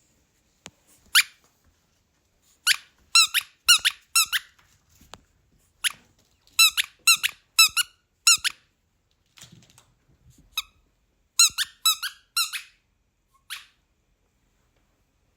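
Squeaky rubber dog-toy ball being squeezed, giving short high squeaks in quick runs of three or four, about fourteen in all, with pauses between the runs.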